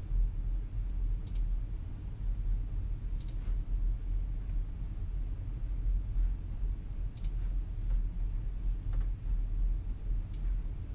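Quiet office room tone: a steady low hum with a handful of isolated sharp computer-mouse clicks spaced a second or more apart.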